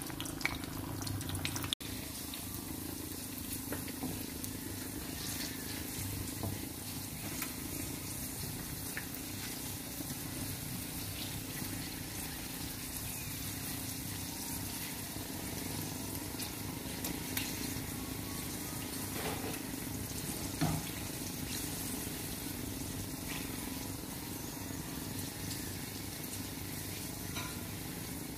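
Sausage pieces deep-frying in hot oil in a pan: a steady sizzle with scattered small pops and occasional clicks of a spatula against the pan.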